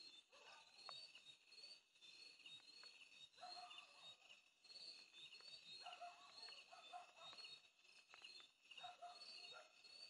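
Faint night insect chorus, crickets chirping steadily in a high pulsing trill, with faint distant animal calls coming and going about three times.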